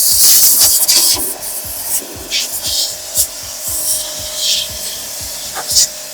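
Portable high-pressure car washer running, its water jet spraying with a loud hiss that is strongest in the first second, over a faint steady motor hum.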